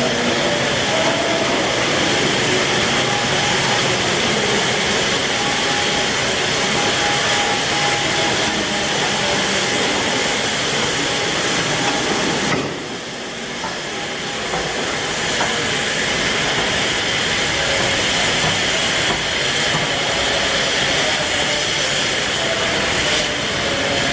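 Steam hissing steadily from the new-build Peppercorn A1 Pacific steam locomotive 60163 Tornado. About halfway through the sound drops suddenly, then builds back to the same steady hiss.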